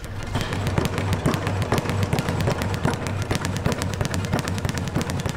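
A fast, even run of sharp cracking impacts, many per second, over a steady low hum.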